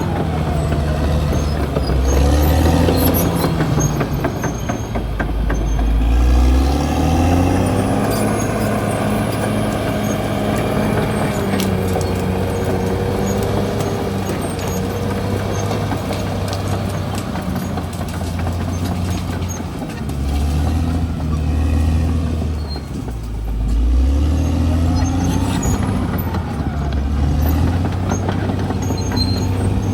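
Caterpillar D6R XL bulldozer's diesel engine working under load, its pitch rising and falling repeatedly as it revs, with high wavering squeals over the engine.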